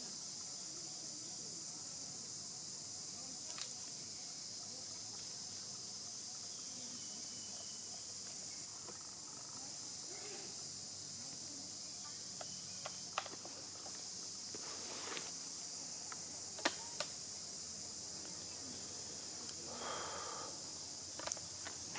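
Steady high-pitched insect chorus droning without a break, with a few sharp clicks and a couple of brief rustles.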